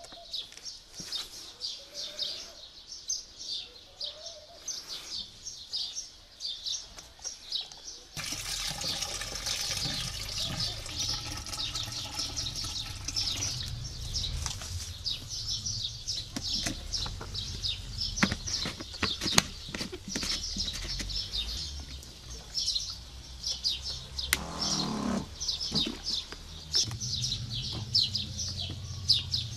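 Small birds chirping continuously in rapid, high chirps. From about eight seconds in, a louder steady background hum joins, with scattered light knocks.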